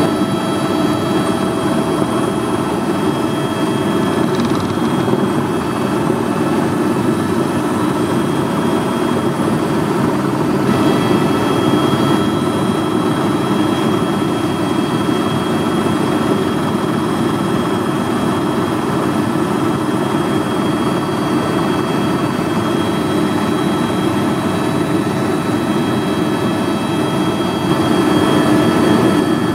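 Steady turbine and rotor noise of an Airbus helicopter in cruise, heard from inside the cabin, with faint high whines over it; one whine gets a little stronger about ten seconds in.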